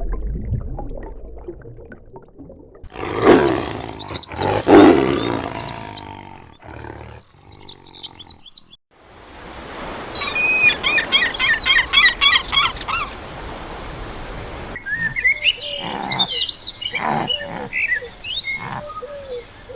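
A string of different animal calls. Two loud, coarse calls about a second apart come first, then rapid runs of high bird chirps, and more short calls and chirps near the end.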